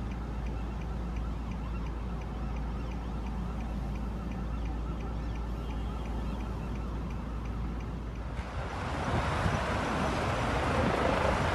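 Steady outdoor hum of road traffic and a helicopter hovering at a distance. About eight seconds in, the sound changes abruptly to louder wind noise buffeting the microphone.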